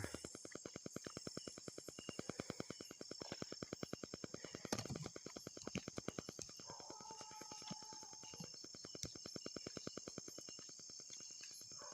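Night-time outdoor ambience: a steady high insect trill over a fast, even pulsing of about eight beats a second, with a single sharp knock about five seconds in.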